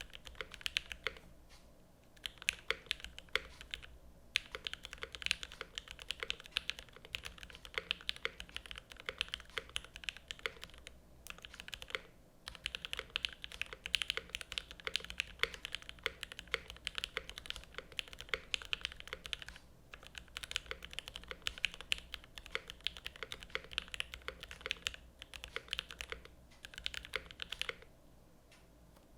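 Steady fast typing on a Velvet Pro 60% custom mechanical keyboard with a stainless steel bottom case, lubed Gateron X linear switches, GMK Oblivion keycaps and an aluminium plate: a rapid stream of key clacks with a few short pauses, stopping about a second before the end.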